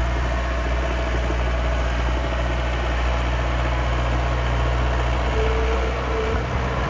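Engine of a miniature construction machine idling steadily with a low, even hum.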